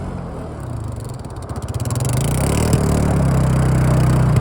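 A vehicle engine running, easing off and then picking up revs again about two seconds in.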